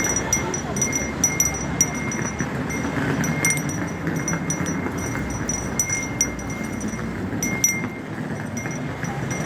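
Hand bell rung over and over in quick, uneven strokes, each stroke a short bright clang.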